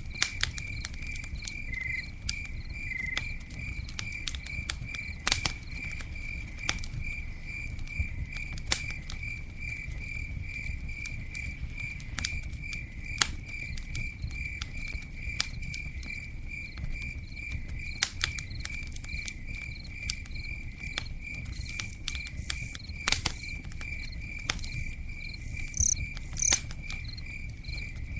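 Campfire crackling, with irregular sharp pops and snaps over a low steady rumble. Throughout, a cricket chirps at one high pitch in an even rhythm of about three chirps a second.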